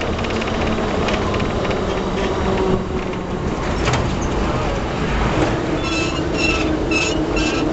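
Old tram running along the track: a steady rumble of wheels on rails with a motor hum that steps up in pitch about five seconds in. Near the end a run of short, high tones comes about twice a second.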